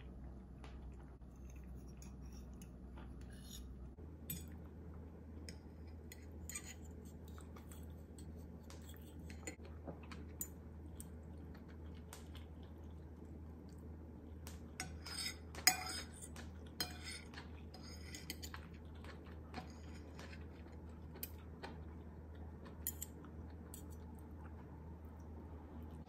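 Metal fork and spoon clinking and scraping on a ceramic plate while twirling and eating spaghetti: scattered light taps, with a louder cluster of clinks about fifteen seconds in, over a faint steady low hum.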